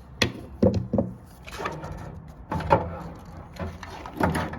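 Several sharp knocks and clattering as a replacement burner assembly for a gas water heater is handled and fitted into place.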